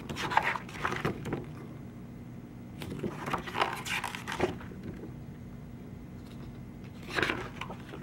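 Large glossy pages of a photobook being turned by hand, giving three bursts of paper rustling and flapping: at the start, around three to four seconds in, and again near the end. A steady low hum runs underneath.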